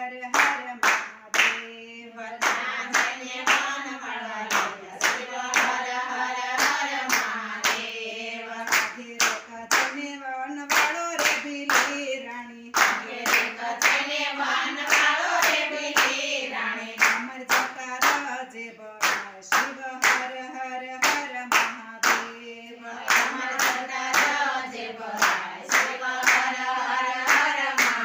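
Group of women singing a Gujarati Shiv bhajan together, with no instruments, while clapping their hands in a steady beat of about two claps a second.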